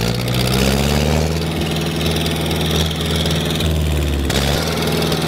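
Old farm tractor's diesel engine running under load as its front loader pushes into a pile of straw bales. The engine revs up over the first second, then holds a steady note.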